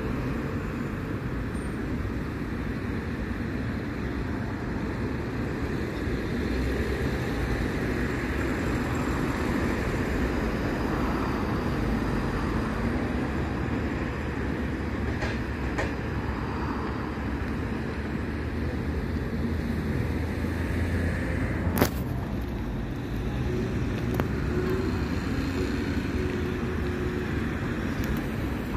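Road traffic at a roundabout: cars and city buses passing, a steady rumble without let-up. One sharp click about twenty-two seconds in.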